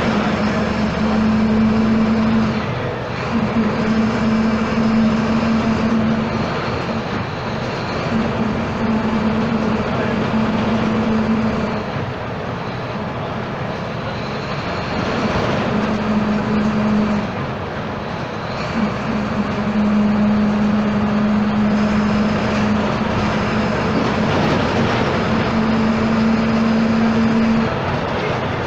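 Volksbus 17-230 EOD city bus with a Marcopolo Torino body, running under way. A strong droning hum holds for a few seconds at a time and drops out between stretches, over steady engine and road noise, with a faint high whine rising and falling above it.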